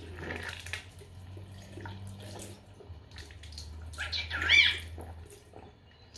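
A cockatiel gives a short warbling whistle about four seconds in, over the scrubbing of teeth being brushed and the rush of running water.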